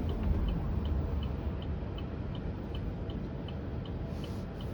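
A car's turn-signal indicator ticking steadily inside the cabin, about two or three ticks a second, as the Cruise self-driving car signals to pull over. A steady low road rumble lies under the ticks.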